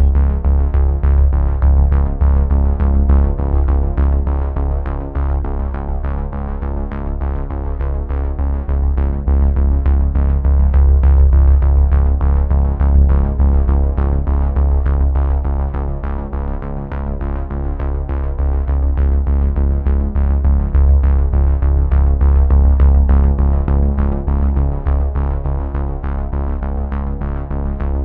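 Background instrumental music: synthesizer and keyboard tones over a steady, regular pulse.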